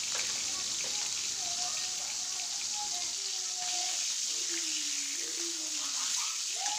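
Hilsa fish pieces sizzling steadily in hot oil in a metal kadai. They are turned over with a metal spatula in the second half.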